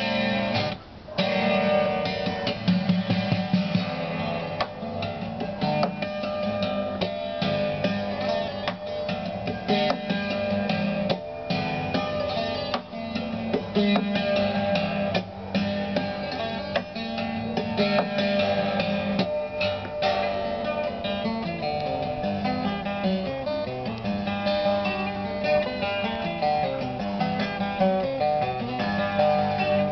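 Solo acoustic guitar played live: a busy stream of picked notes over steady low bass notes.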